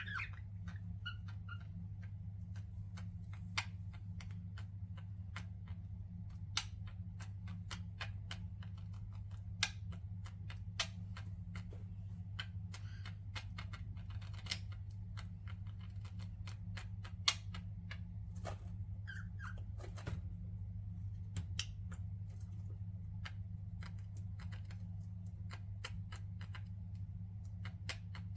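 Pet budgerigars in a cage: many scattered sharp clicks and taps, with a few short chirps, one falling chirp at the start and brief calls about a second in and again past the middle, over a steady low hum.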